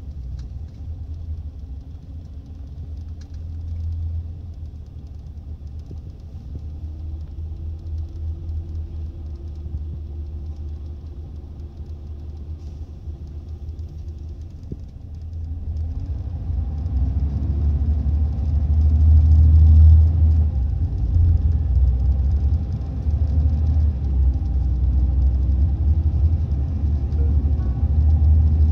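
Inside a Scania L94IB city bus with a ZF Ecomat 5HP600 automatic gearbox, the diesel engine rumbles low while cruising, with a steady whine through the middle of that quieter stretch. About halfway through, the engine revs up hard under heavy acceleration, rising in pitch and growing much louder. It dips briefly about two-thirds of the way through, then stays loud.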